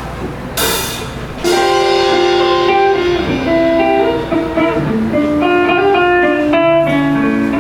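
Live band's guitar intro: two strummed chords in the first second and a half, then held guitar notes picking out a melody over the chords.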